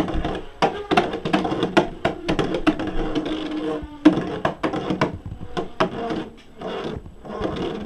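Beyblade spinning tops whirring in a plastic stadium, with many sharp clacks at irregular intervals as they hit each other and the stadium walls. The whirring hum drops in pitch about halfway through.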